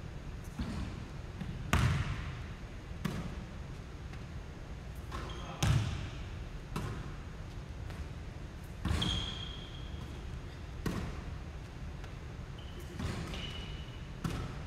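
Basketballs bouncing on a hardwood gym floor, a sharp thud every one to two seconds, over a steady low hum. Two short high squeaks come in, one about nine seconds in and one near the end.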